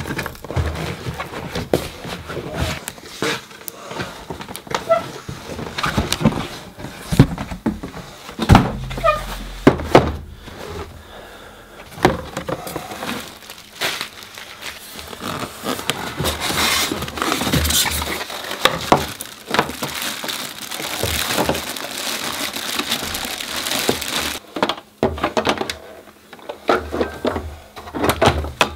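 Cardboard box and packing for an Audio-Technica turntable being handled during unboxing: repeated knocks and thumps, with a longer stretch of rustling packaging about two-thirds of the way through.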